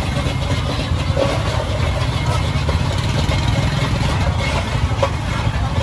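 A steady low engine rumble, like a vehicle idling, under a general street noise.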